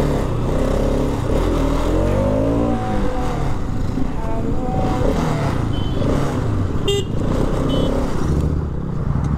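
Motorcycle engines running as the bikes ride and slow to a stop, the engine note rising and falling about two seconds in. A few short horn toots sound around five to seven seconds in.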